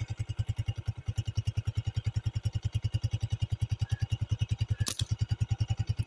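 Motorcycle engine running at a steady low speed, an even putt-putt of about a dozen beats a second, with a single sharp click about five seconds in.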